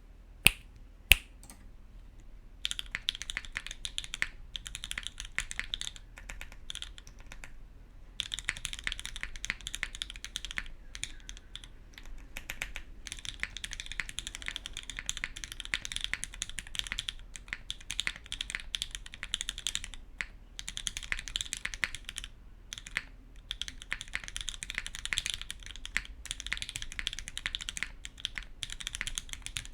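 Typing on a SingaKBD Unikorn R1 custom mechanical keyboard with lubed, filmed Gateron Ink v1 switches on an aluminium plate and GMK keycaps: rapid runs of keystrokes broken by short pauses. Two sharp, louder clicks come before the typing starts.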